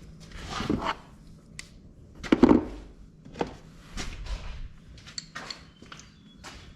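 Hand tools and metal parts being handled: a series of separate knocks and clatters, the loudest about two and a half seconds in.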